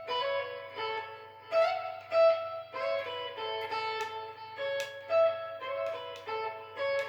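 Guitar playing a single-note lead line, notes picked one after another every third to half second, over a faint steady low hum.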